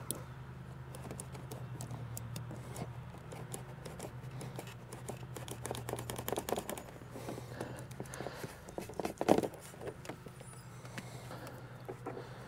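Light clicks and taps of fuel hoses being handled and pushed into the mouth of a fuel can, with one louder knock about nine seconds in. A steady low hum runs underneath and fades out around eight seconds in.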